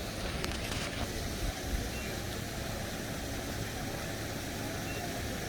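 A vehicle engine idling: a steady low rumble, with a couple of faint clicks in the first second.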